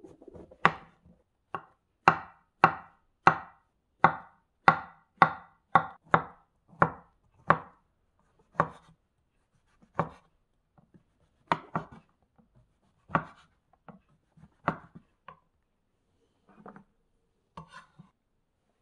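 Kitchen knife slicing through a king oyster mushroom and striking a wooden cutting board: crisp, even chops about twice a second, then slower, sparser cuts after about eight seconds, and a few soft knocks near the end.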